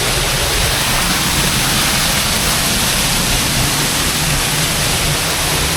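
Waterfall's loud, steady rush of falling water.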